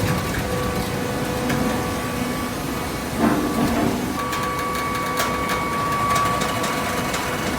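Automatic horizontal hydraulic cardboard baler running: a steady machine hum, with a louder knock about three seconds in and a run of sharp metallic clicks a couple of seconds later.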